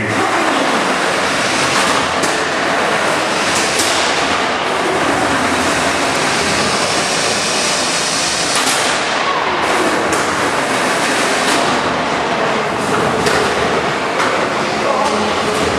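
Featherweight combat robots fighting: a loud, steady mechanical din of drive motors and weapons, with repeated clattering knocks as the robots hit each other and the arena walls.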